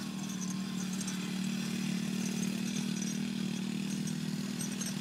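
Small youth ATV engine running with a steady drone, a little louder through the middle.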